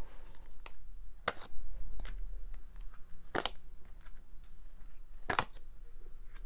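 Tarot cards being drawn from a deck and laid down on a table: three sharp card slaps about two seconds apart, with quieter card handling and rustling between.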